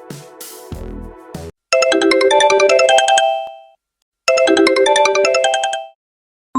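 Smartphone ringtones. An electronic ringtone with deep bass pulses ends about a second and a half in. Then a short, bright chiming melody plays twice, with a brief pause between the two runs.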